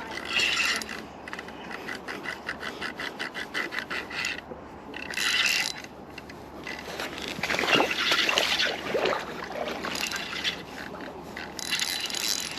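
Rapid rhythmic scraping and rubbing, about five strokes a second, which stops about four seconds in, followed by a few louder irregular rustling scrapes.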